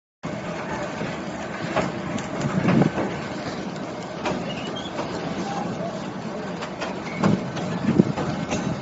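Passenger train running over a steel trestle bridge, heard from aboard a carriage: a steady rumble of wheels on rail with irregular clanks and knocks. The loudest knocks come about three seconds in and near the end.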